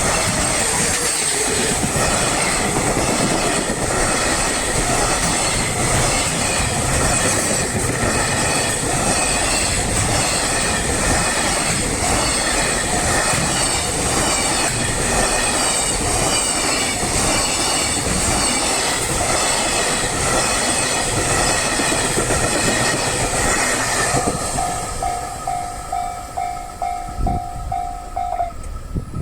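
A long train passes over a level crossing, its wheels clattering in a steady rhythm over the rail joints. The train noise ends about 24 seconds in. The crossing's warning bell is then heard ringing on its own, and it stops just before the end.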